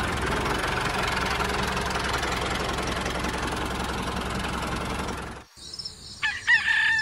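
Tractor diesel engine sound running steadily with a low pulsing rumble, laid over a toy model tractor; it cuts off abruptly about five and a half seconds in. Bird chirps follow near the end.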